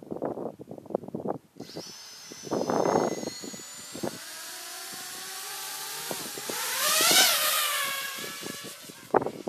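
FPV quadcopter's brushless motors spinning up from idle with a whine that climbs slowly, then throttled up hard for takeoff about seven seconds in and eased back. Heavy wind gusts buffet the onboard microphone at the start and again near the end.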